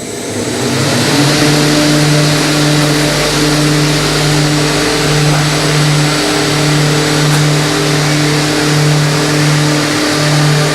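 A shoe-last milling machine starting up and running: a steady motor hum with a loud hiss of spindles and cutters that builds up over the first second and then holds.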